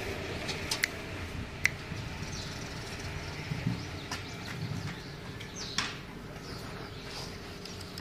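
Sharp metallic clicks and taps of a metal hand tool against engine parts, the loudest two about a second apart near the start, with short bird chirps in the background.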